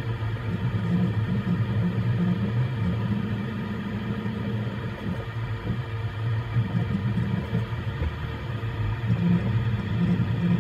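Voron 3D printer running mid-print: a steady mechanical hum of its stepper motors and cooling fans, with a low drone that keeps shifting in level as the print head makes short moves.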